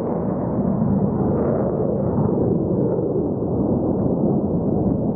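Fighter jet's engine noise as it flies a low pass: a loud, steady, deep rumble that turns slightly duller about halfway through.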